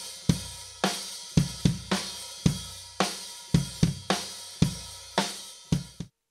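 Acoustic drum kit played in a steady beat: unprocessed acoustic snare drum and bass drum strokes under cymbal hits, with no trigger sample added. It cuts off abruptly near the end.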